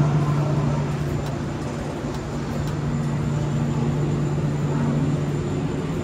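Steady low mechanical hum over a constant wash of background noise.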